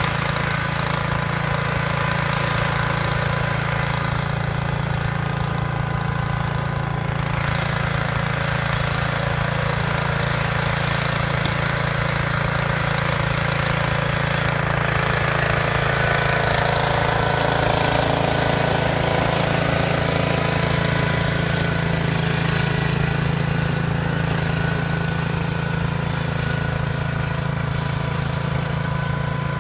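Small engine of a John Deere garden tractor running steadily while it pushes snow with a front blade.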